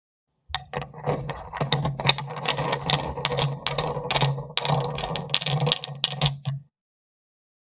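Gym weights clinking and rattling, metal against metal, in quick irregular clicks over a steady low hum; it stops about six and a half seconds in.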